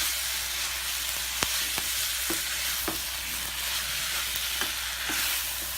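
Garlic spaghetti and sauce sizzling in a frying pan while being stirred: a steady hiss, with the utensil clicking against the pan several times.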